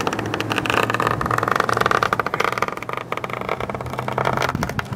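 Razor blade drawn through sticky, gooey seam tape along a riveted aluminum trailer seam, a dense crackling scrape that eases off near the end, over a low steady hum.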